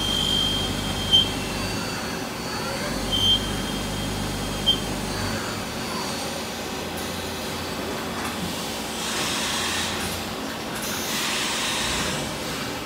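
Steady machinery hum of a machine shop, with a high tone about a second long at the start and two short high chirps over the next few seconds, and a hiss that swells for a few seconds near the end.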